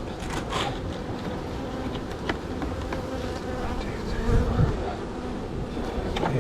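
Honeybees buzzing in a steady hum over an opened hive during a frame inspection, with a few light clicks and two low thumps about four seconds in.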